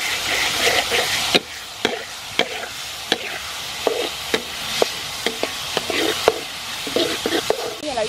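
A spatula stirring diced peppers in a metal frying pan, with sharp irregular scrapes and taps against the pan about every half second. A steady sizzle of the vegetables frying in oil runs under the taps.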